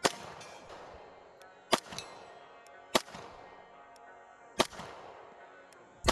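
Glock 19X 9mm pistol fired slowly, about five sharp single shots spaced a little over a second apart and unevenly, over background music.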